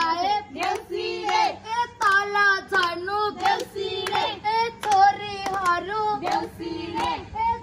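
A group of women singing a Nepali Deusi festival song together, with hand claps keeping time.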